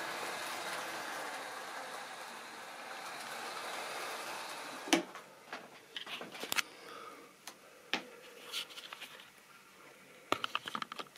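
Model railway train running on the track, its steady running noise slowly fading over the first four seconds or so, followed by scattered sharp clicks and knocks, with a quick cluster of them near the end.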